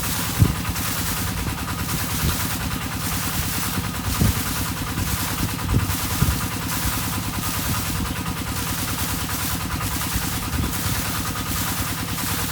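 Irrigation pump's engine running steadily with a fast, even low throb, with a few low thumps, over a chorus of frogs calling in a rhythm that swells and fades about twice a second.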